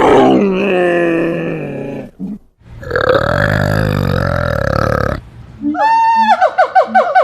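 Animal calls, one after another: a loud call falling in pitch over about two seconds, then a longer, rougher call, then from near the end a rapid run of short repeated notes, about five a second.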